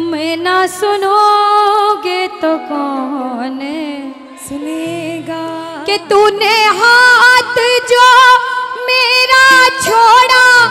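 A woman singing a Hindi devotional bhajan into a microphone over instrumental backing, with long held notes and ornamented, bending pitch.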